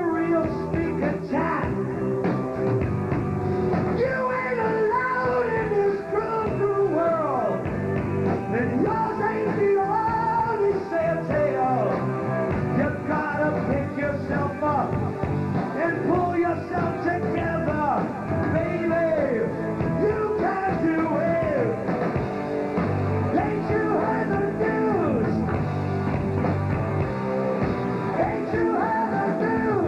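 Live rock band playing a song, with a male lead singer over electric guitars and drums.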